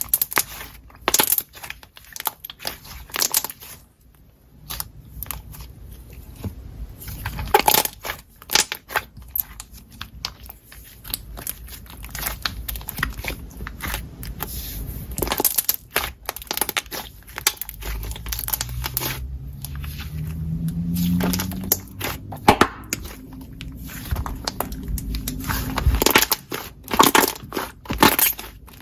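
Slime being pressed, poked and stretched by hand, giving a rapid, irregular run of crackles, clicks and pops.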